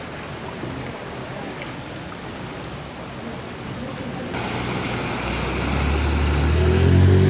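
Floodwater washing and sloshing along a street. After a cut, a motor scooter rides through the water toward the camera, its engine hum swelling over the last couple of seconds.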